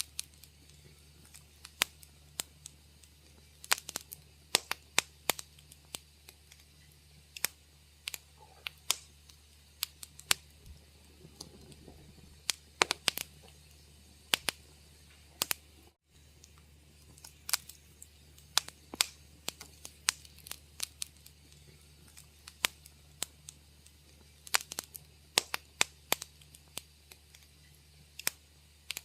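Wood fire crackling: irregular sharp pops and snaps, several a second at times, over a faint steady low hum. The sound drops out for an instant about halfway through.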